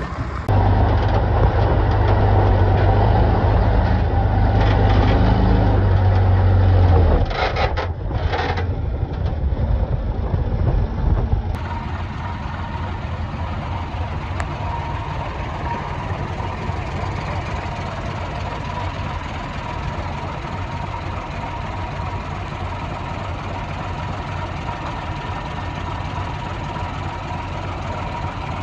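Diesel engine of heavy earthmoving machinery working under load, loud with a deep steady hum for the first several seconds, then a few sharp clanks or hisses around eight seconds in. From about eleven seconds in an engine runs on steadily at a lower level.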